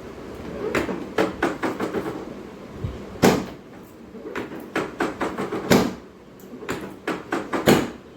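A series of sharp knocks and slaps in quick irregular clusters, three of them louder than the rest.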